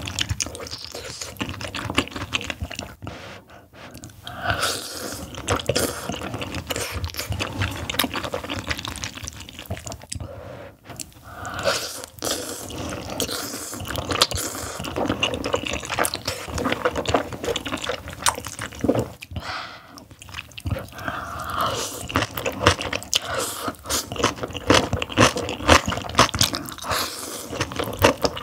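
Close-miked eating sounds: wet slurping and chewing of seaweed-and-oyster knife-cut noodles (maesaengi gul kalguksu), with crisp crunching bites of cabbage kimchi. A continuous run of sticky clicks and wet smacks, with short pauses between mouthfuls.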